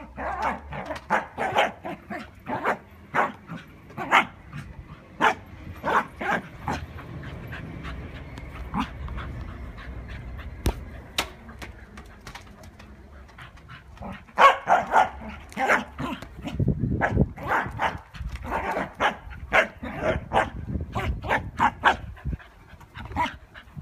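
Scottish terrier barking in quick runs of short barks, with a quieter stretch in the middle before the barking picks up again.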